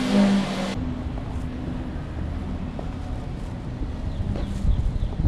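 A brief steady hum cuts off abruptly under a second in, then low wind rumble buffets the microphone of a Honda Super Cub 90 motorcycle under way.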